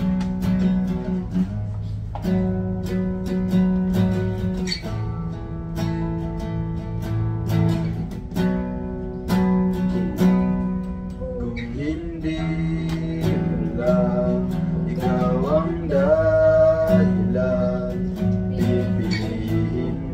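Acoustic guitar strummed in a steady rhythm of chords, with voices singing a melody over it from about twelve to seventeen seconds in.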